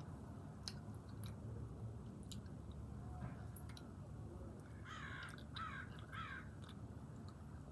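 A crow cawing three times, about five to six and a half seconds in, over a low steady background and faint clicks of someone chewing.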